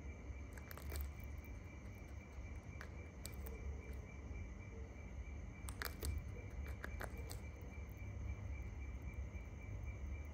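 Shikra tearing at a pigeon carcass: faint, irregular clicks and ticks, about nine of them scattered through, over a steady low rumble and a thin steady high tone.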